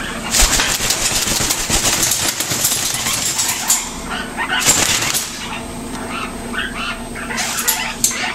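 Male eclectus parrot flapping its wings hard for about three seconds, then settling, with a few short vocal sounds.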